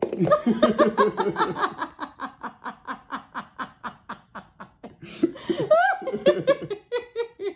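A person laughing hard in a long run of quick, even bursts, about five a second, then a few higher-pitched laughs near the end.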